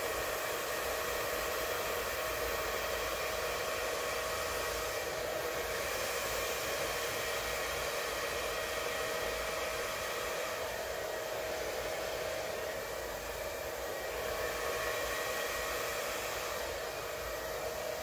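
Handheld electric blower running steadily with a constant whine over a rush of air, blowing wet acrylic paint out across a canvas.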